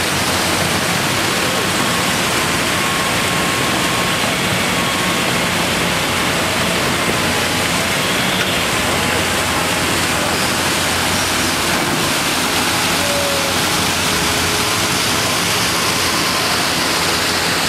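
Steady rushing of water, running on without a break.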